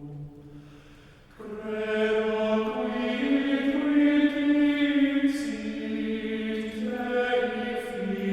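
Plainchant sung by voices, with long held notes that move up and down in steps. One phrase fades out and a new one begins about a second and a half in.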